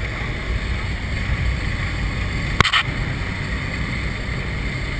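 Steady engine and wind noise inside a skydiving jump plane's cabin, with a single sharp knock about two and a half seconds in.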